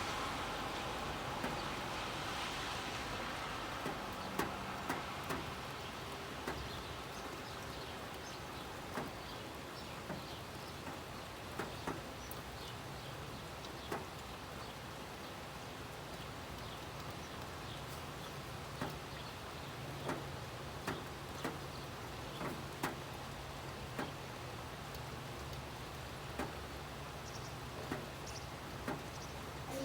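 Steady city rain with scattered drops ticking close by. The hiss of a car passing on the wet road fades out over the first few seconds, and a low steady hum comes in about halfway.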